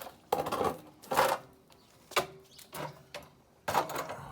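Hand tools tightening the bolts that hold a Razor E200 electric scooter's rear wheel in line: five or six short, rasping bursts at uneven intervals.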